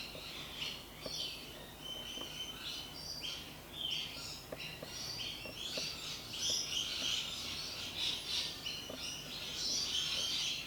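Background birdsong: many small birds chirping and twittering throughout, with a few faint soft ticks from the pick working the lock's pins.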